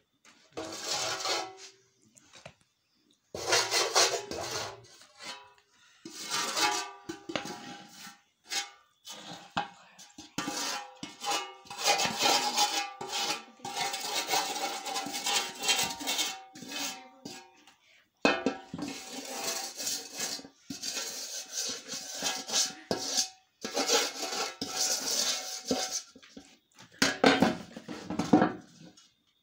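Wooden spoon stirring and scraping flour mixture around a steel bowl, with clattering and ringing of the metal bowl in irregular bursts and short pauses.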